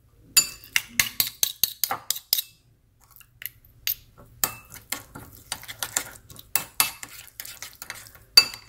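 Metal spoon stirring and scraping a thick, wet marinade of minced garlic and shallot in a ceramic bowl, with many quick clinks and scrapes of metal on ceramic; a short pause about two and a half seconds in.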